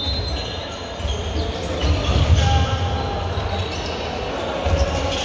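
Handball bouncing and being passed on the wooden floor of a large sports hall, with short high squeaks and players' calls.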